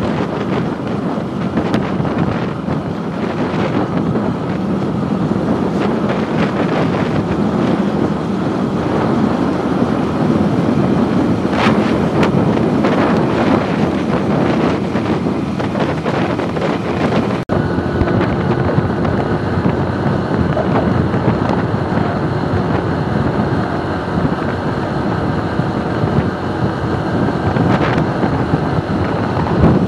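Wind noise buffeting the microphone of a moving motorcycle, with the bike's engine and tyre noise blended in underneath. The sound cuts out for an instant a little past halfway.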